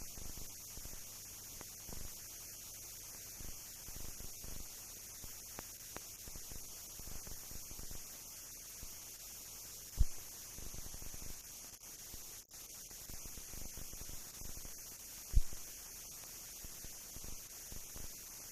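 Steady hiss and mains hum of a mute film transfer, with scattered faint crackles and two sharp low pops, about ten and fifteen seconds in. No aircraft or vehicle sound is heard.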